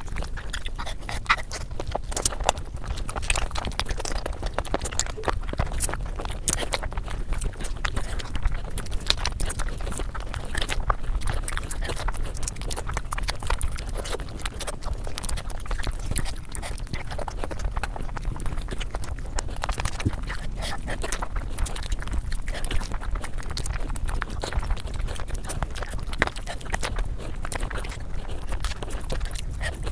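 Close-miked eating sounds: wet chewing and a dense run of irregular mouth-smacking clicks as chicken and gravy-soaked fried rice are eaten by hand, over a low steady hum.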